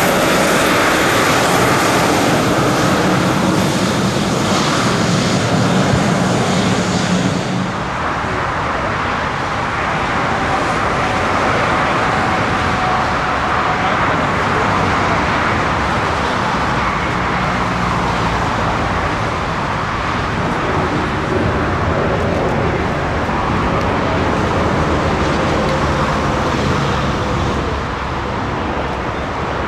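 Airliner jet engine noise, loud and steady. About seven seconds in it changes abruptly to a duller, steadier rumble with a faint held whine.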